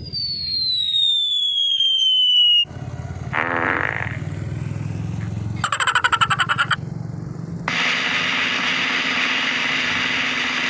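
Cartoon comedy sound effects played back one after another: first a descending whistle, then a short comic clip, a fast rattling trill, and a steady noisy effect that cuts off near the end.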